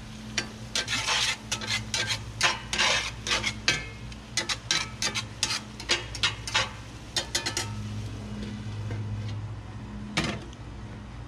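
Metal spatula stirring and scraping a stew in a cast-iron skillet: a quick run of scrapes and taps for about seven seconds, then a single knock near the end.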